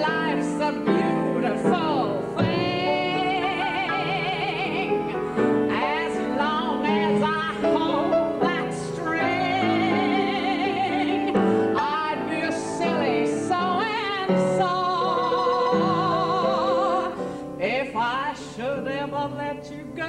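Soprano voice singing long, high held notes with a wide vibrato, in an operatic style, over grand piano accompaniment.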